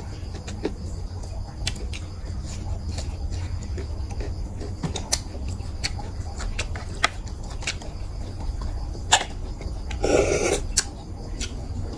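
Close-up eating and handling sounds: scattered small clicks and ticks of fingers and snail shells, then a short slurping suck about ten seconds in as a stir-fried snail is sucked out of its shell. A low steady hum runs underneath.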